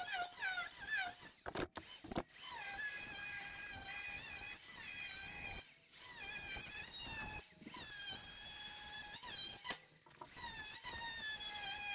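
Small cordless angle grinder with a cut-off disc cutting through rusty sheet steel of a car's wheel-arch panel: a high whine that wavers and dips in pitch as the disc bites, with several short breaks in the cut.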